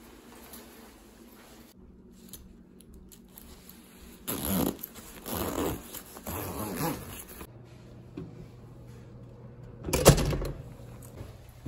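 Zipper of a quilted nylon puffer jacket being pulled up in three rasping strokes, with the fabric rustling. About ten seconds in, a metal lever door handle is turned and the latch gives a sharp clack, the loudest sound here.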